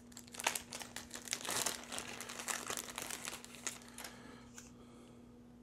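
Small plastic zip-top parts bag crinkling and rustling as it is handled and opened, with the plastic relay tube drawn out of it; a dense run of crackles that dies down after about four seconds.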